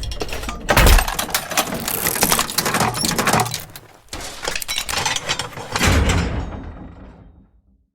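Designed sound effect: a dense crackle of many small clicks and impacts, with heavy low thuds about a second in and again near six seconds. It fades and stops about seven and a half seconds in.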